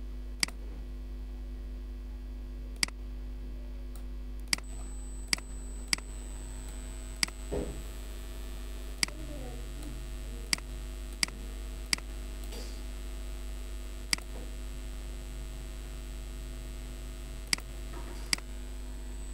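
Computer mouse clicking: about a dozen single, sharp clicks at irregular intervals over a steady low mains hum.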